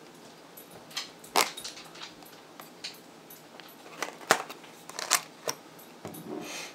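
Spyderco Manix 2 folding knife cutting the tape on a small cardboard box, with scattered sharp clicks and taps as the blade and box are handled; the loudest come about a second and a half and about four seconds in, and a short scraping rasp follows near the end.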